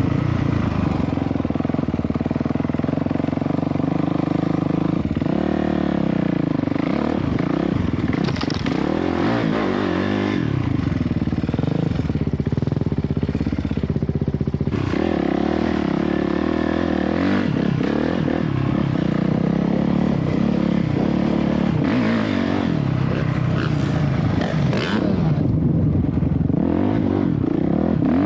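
A 450 dirt bike's engine running hard on a hill climb. The revs rise and fall again and again under the throttle.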